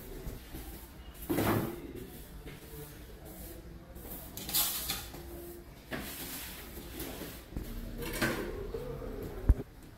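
Broom sweeping a tiled floor in several separate swishing strokes, then brushing dirt into a plastic dustpan. A single sharp knock near the end is the loudest sound.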